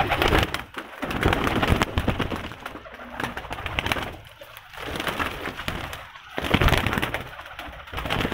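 Flock of domestic pigeons in a loft: wings flapping and clattering in several bursts, with cooing.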